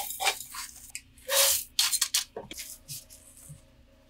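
Short bursts of rustling and scraping as a string of turtles succulent is worked out of its pot, its loose, dry soil crumbling and falling away from the shallow roots. The loudest scrape comes about a second and a half in.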